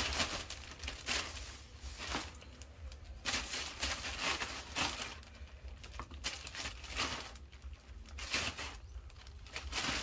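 Leaves and vines being handled, rustling and crinkling in irregular bursts, over a low steady rumble.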